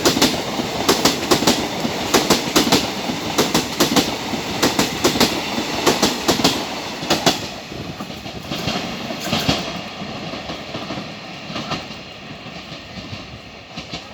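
Passenger train running at speed, its wheels clattering over rail joints in quick groups of clicks. The clatter thins out and fades after about seven or eight seconds, leaving a dying rumble.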